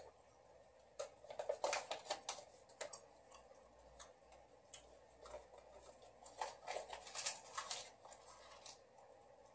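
Small piece of printed photo paper crinkling and crackling as it is handled and brought to the mouth to be eaten, in two bouts of rapid crisp crackles: one about a second in, the other from about six to eight seconds.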